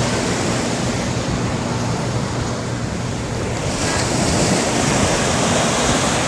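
Sea waves washing onto the beach: a steady rush of surf, with a brighter hiss as a wave comes in a little over halfway through. Wind buffets the phone microphone with a low rumble.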